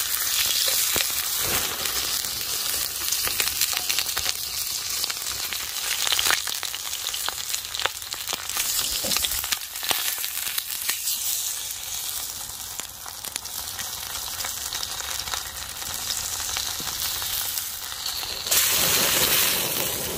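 A thick slab of bacon sizzling in a frying pan over a wood fire, a steady hiss with frequent small pops of spitting fat. The sizzle grows louder near the end.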